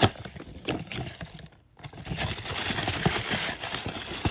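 Small cardboard gift box being handled and opened: a sharp tap as it starts, a few clicks of card, then from about two seconds in a steady crinkling rustle of paper packing being dug through.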